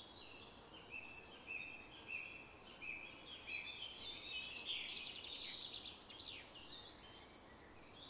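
Birds calling faintly: a run of short repeated high notes, then a busier burst of chirping in the middle.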